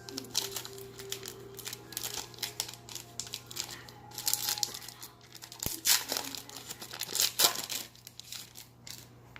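The wrapper of a football trading-card pack being torn open and crinkled by hand: a run of irregular crackles and rustles, loudest about six and seven and a half seconds in.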